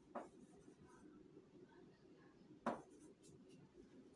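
Faint scratching of chalk writing on a chalkboard, with two short, louder sounds, one just after the start and one a little under three seconds in.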